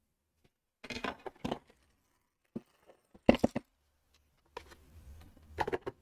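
Plastic Lego pieces clicking and rattling as they are handled, in short clusters of clicks, the loudest about three and a half seconds in.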